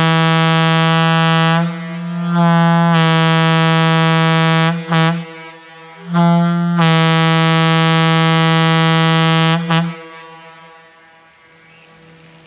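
Large air horn blown on compressed air, sounding one low, steady note in three long blasts of two to four seconds each. A brief chirp follows the second and third blasts.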